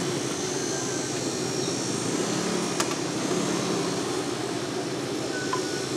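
Steady roar of a gas burner under a large pan of boiling broth, with one sharp clink about three seconds in.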